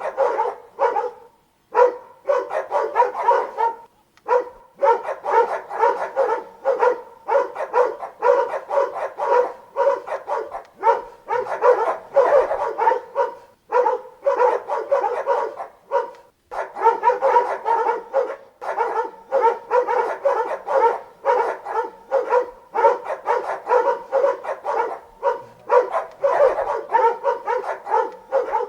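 Dogs barking rapidly and continuously, several barks a second, with a few brief pauses.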